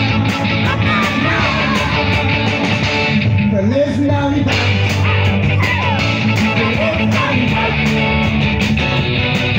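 Live group singing into microphones, with strummed guitars keeping a steady beat under the voices.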